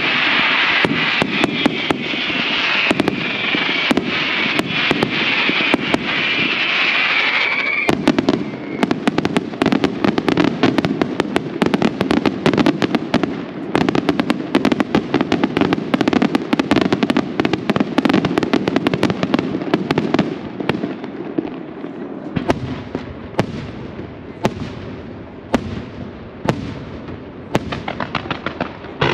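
Aerial fireworks shells bursting in rapid succession. A high hissing whistle runs through the first eight seconds over the bangs, then a dense barrage of bangs and crackle follows, thinning to separate bangs with fading crackle over the last seven seconds.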